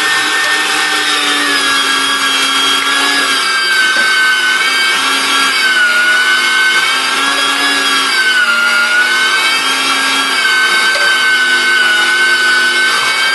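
Electric meat grinder's motor running under load as pike fillet and pork fat are fed through it, a loud steady whine whose pitch sags slightly now and then.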